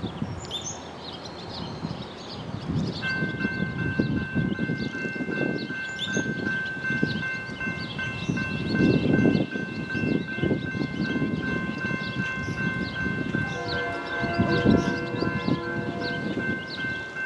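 Railroad grade-crossing warning bell starts ringing about three seconds in as the crossing signals activate for an approaching train. A lower, chord-like train horn joins near the end, and birds chirp in the background.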